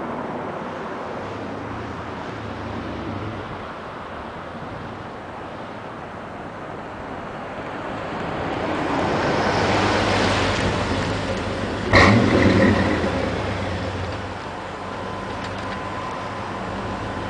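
1998 Chevrolet Silverado pickup with a Flowmaster 50 Series exhaust, heard from a distance and growing louder as it comes back, loudest around ten seconds in. A sharp bang about twelve seconds in, then the exhaust settles to a steady idle.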